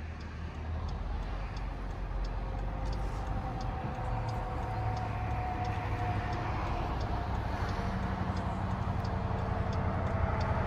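Diesel locomotive running with a steady low rumble. A light regular ticking comes about twice a second throughout.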